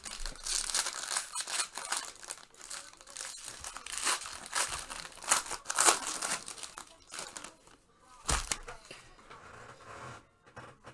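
Plastic packaging crinkling and rustling with small clicks as trading cards are handled, with a single knock about eight seconds in.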